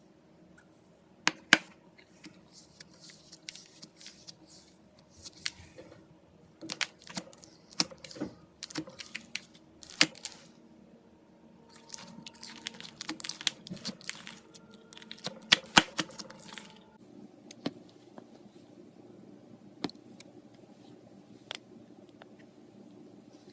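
Glitter slime being handled: a run of irregular sticky clicks, pops and crinkles, densest in the middle and thinning out near the end.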